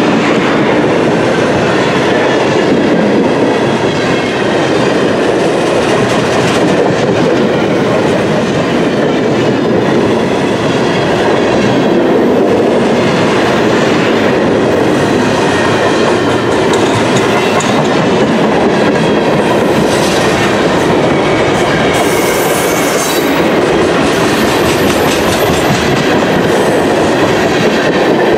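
Freight train cars, flatcars and then tank cars, rolling past close by: a steady, loud rolling clatter of steel wheels on the rails.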